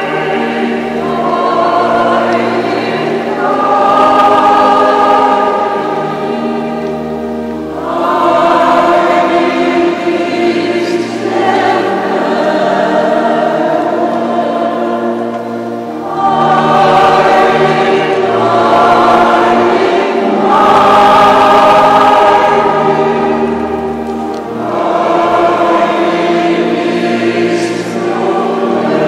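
Choir singing a hymn with organ, in long phrases of about eight seconds each that swell and ease.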